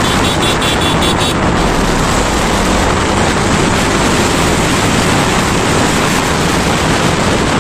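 Wind rushing over the microphone of a moving motorcycle, with the bike's engine running under it as a steady loud noise.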